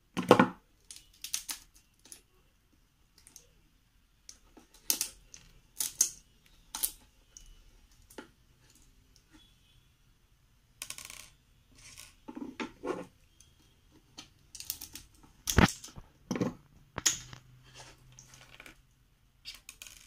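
Irregular sharp clicks and taps of a dried golden shower (Cassia fistula) seed pod being broken apart by hand, with its small hard-shelled seeds and woody shell pieces dropping onto a tabletop; one louder knock about two-thirds of the way through.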